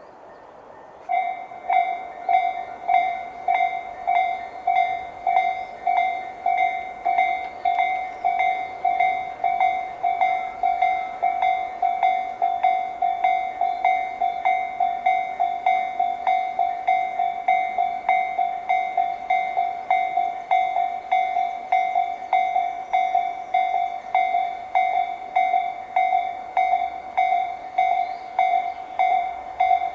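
Japanese railway level-crossing alarm, Tobu's electronic 'sound C' in its slow-tempo version from the warning units on both sides, starting about a second in and repeating one bell-like tone at an even, unhurried rhythm. It is the warning that a train is approaching.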